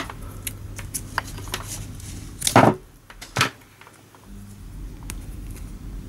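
Hand handling of electrical tape being wrapped around a cable: small clicks and rustles, with a short louder rasp about two and a half seconds in and a smaller one just after, as the tape is parted from the roll.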